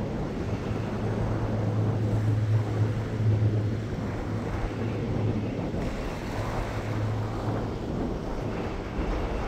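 Small waves lapping and washing over a rocky reef shoreline, with wind on the microphone. A steady low hum runs underneath, fading about halfway through and coming back near the end.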